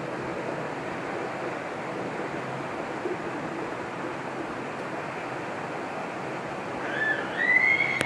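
Steady whooshing womb-sound white noise, like a low rushing surf. Near the end a brief high-pitched squeak glides upward over it.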